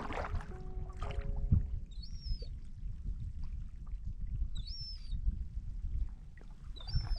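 Sea kayak paddling: water splashing and dripping off the paddle and lapping against the hull, with a short, high-pitched squeak about every two and a half seconds.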